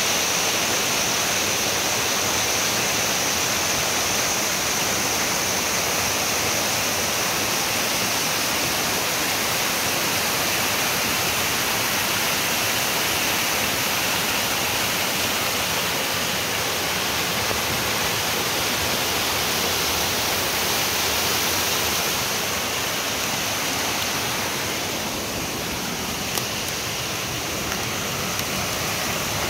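Waterfall and creek running high and muddy, a steady rush of falling and flowing water that eases slightly near the end.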